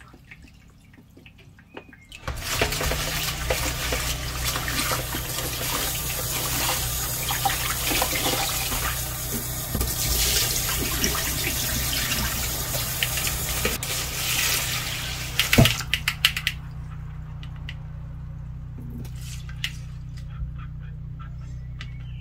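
Kitchen tap running into a stainless steel sink. The rush of water starts about two seconds in and stops after about sixteen seconds, just after a sharp knock. A few light knocks follow over a steady low hum.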